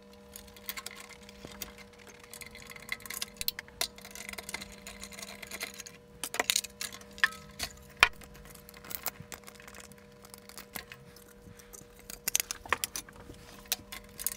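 Irregular clicks, knocks and light rattles of circuit boards and their cable connectors being unplugged and lifted out of a metal scanner chassis, with the loudest knocks about six and eight seconds in. A faint steady hum runs underneath.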